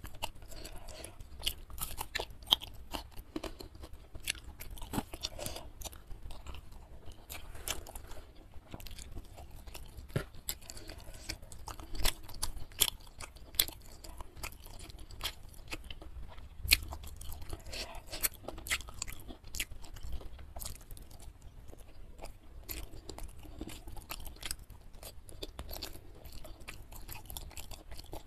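A person chewing and crunching spicy Indonesian food close to the microphone, with many short, sharp crunches and clicks at an irregular pace.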